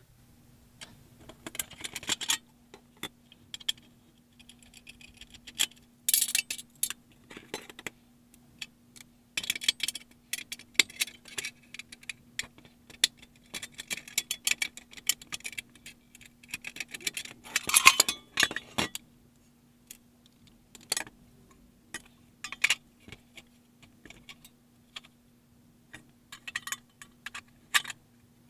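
Irregular metallic clicks, clinks and clatter from an outdoor air-conditioner disconnect box being taken apart by hand: the sheet-metal lid and the internal disconnect block are lifted out and handled on the bench.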